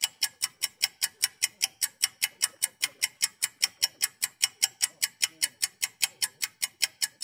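Rapid, perfectly even ticking, about five sharp ticks a second, like a fast clock-tick sound effect.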